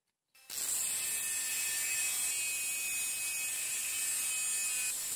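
Bench grinder fitted with an abrasive cut-off disc, cutting into a thick steel plow-disc blade: a steady grinding hiss of metal against the wheel. It starts about half a second in.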